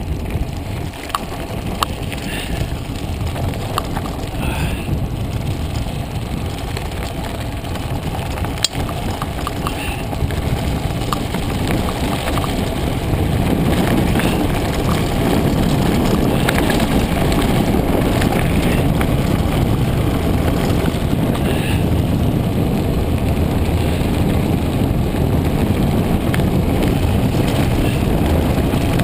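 Mountain bike descending fast on a gravel road: wind rushing over the camera microphone mixed with tyre noise on the gravel, with scattered clicks and rattles. The rush grows louder about halfway through.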